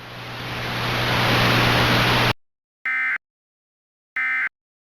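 Weather-radio static hiss swelling louder, then cutting off abruptly, followed after a moment of silence by two short electronic tone bursts about a second and a half apart.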